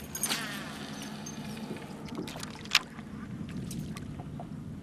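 Cast with a baitcasting reel: the spool whirs as the line pays out, falling in pitch as it slows. A sharp click comes about three seconds in, over a steady low background.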